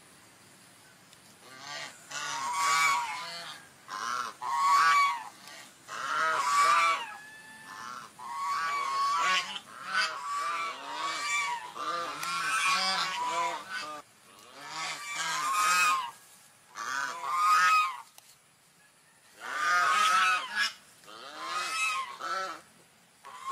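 Swans calling in repeated bouts of short, rising-and-falling notes. Each bout lasts one to a few seconds, with brief pauses between them.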